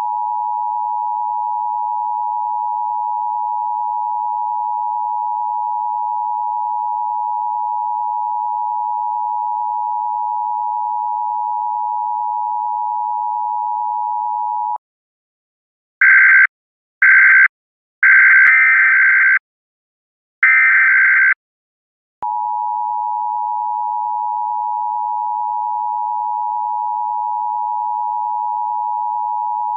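A steady, pure, high-pitched electronic tone cuts off about fifteen seconds in. After a short gap come four louder, harsher electronic beeps at a higher pitch and of uneven length, the third the longest. After another gap the steady tone starts again.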